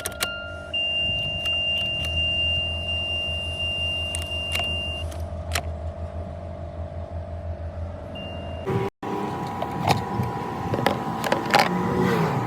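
Car engine running with a steady low pulse and a steady high-pitched electronic tone. After a sudden cut about nine seconds in come a string of clicks and rattles.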